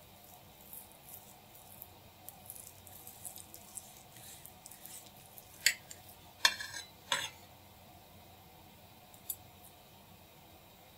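Cutlery scraping lightly and ticking against a dish, then three sharp clinks about halfway through and one more a couple of seconds later.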